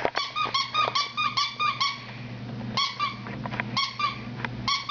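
Rapid high-pitched squeaks from a dog, coming in quick runs of several a second with short pauses between runs.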